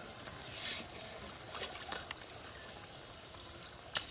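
Water trickling and splashing off a wet cast net as it is pulled in and handled, with a few small clicks and one sharp tap just before the end.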